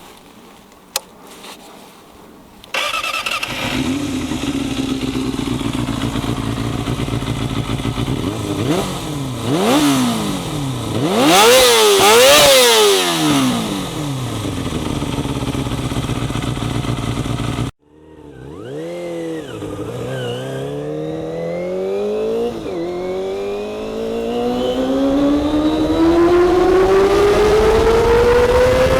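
Kawasaki ZXR250's inline-four engine breathing through a Daishin full aftermarket exhaust: it starts about three seconds in and idles, is blipped several times in quick succession with the revs rising and falling sharply, then after a sudden break climbs steadily higher in pitch toward high revs, with a couple of brief dips along the way.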